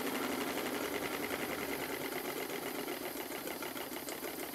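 Stuart triple expansion model steam engine running on steam, a fast, steady, even clatter of its exhaust beats and motion work, now that the condensed water has been cleared and blown out through the exhaust. It gets slightly quieter a couple of seconds in.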